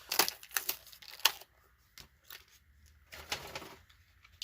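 Plastic blister pack on a diecast car's card being popped and pried open: a quick run of sharp crackling clicks, a few scattered snaps, then a short rustle about three seconds in.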